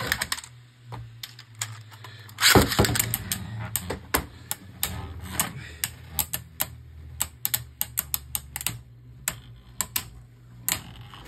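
Two Beyblade Burst spinning tops, Orpheus and Unicrest, launched into a plastic stadium with a ripcord launcher at the start, then spinning in the dish and clacking against each other in many sharp, irregular hits, with a loud clatter about two and a half seconds in.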